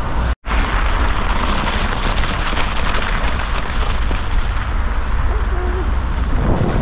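Wind buffeting the action camera's microphone while riding a mountain bike on studded winter tyres: a steady rumbling rush. It cuts out for a moment about half a second in.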